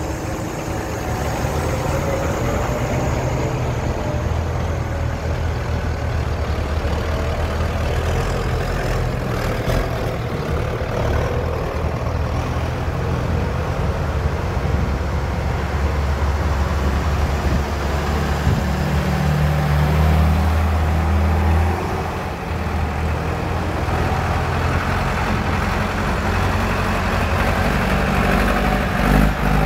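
Diesel tractor engines running as a procession of tractors, among them a Claas Axion, a John Deere and a Valmet 655, drives past one after another. A deep, steady engine sound swells as each tractor comes closest.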